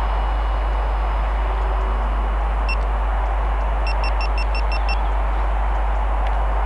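Steady outdoor rumble and hiss, with a single short electronic beep a little over two and a half seconds in, then a quick run of about seven beeps around four seconds in. The beeps come from the action camera mounted on the angler's cap.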